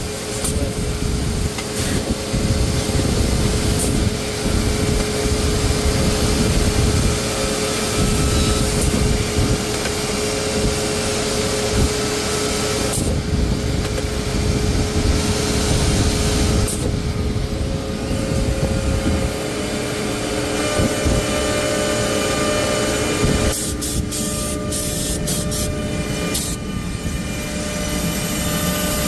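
Six-sided CNC panel drilling machine running: a steady hum under a hiss of spindles and air. A quick string of sharp clicks comes near the end.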